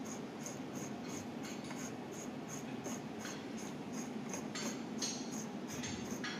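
Threaded end cap of a Honeywell pressure transmitter housing being unscrewed by hand, the metal threads rasping, with a few short scrapes in the second half.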